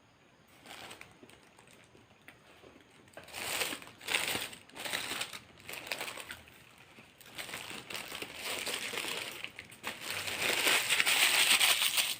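Paper burger wrapper crinkling as it is handled and unwrapped, in irregular bursts that start about three seconds in and are loudest near the end.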